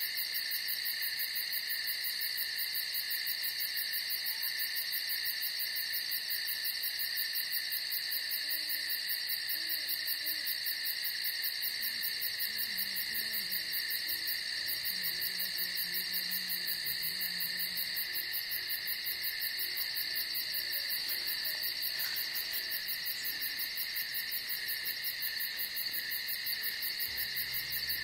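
Evening chorus of crickets chirping steadily, a high, even, fast-pulsing trill that does not let up.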